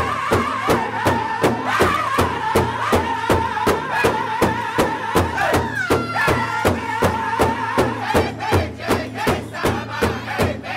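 Powwow drum group singing in loud, high, wavering unison over a large shared powwow drum that many drummers strike together in a steady, fast beat.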